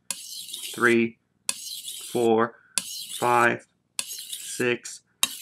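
VG10 steel kitchen knife pushed across a wet whetstone in even strokes, about five scrapes roughly a second and a quarter apart, each stroke followed by a man counting it aloud.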